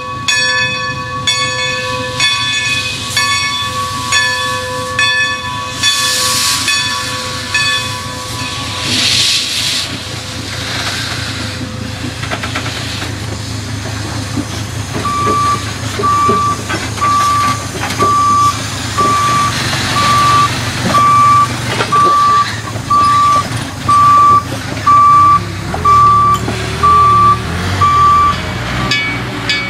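Strasburg Rail Road No. 90, a 2-10-0 steam locomotive, hissing as it vents steam, with a steady high whine over it that fades about ten seconds in. From about halfway, a vehicle's reversing alarm beeps steadily, about one and a half beeps a second, louder than the locomotive, with a diesel engine running low underneath.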